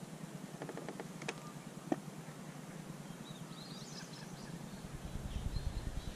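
Quiet riverside ambience: a few faint clicks in the first two seconds, brief high bird chirps about four seconds in, and a low rumble building near the end.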